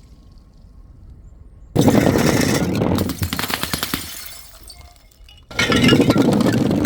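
Glass bottles shattering: a sudden burst of breaking glass about two seconds in that dies away over a couple of seconds, then a second burst about five and a half seconds in.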